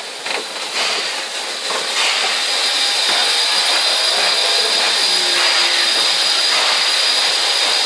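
Steam locomotive No 699 hissing steam, a steady loud hiss that grows louder about two seconds in and then holds, as the engine draws slowly into the station.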